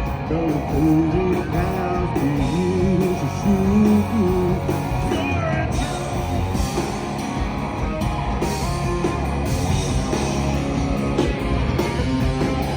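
A rock band playing live, with guitars to the fore. A wavering melody line stands out in the first few seconds.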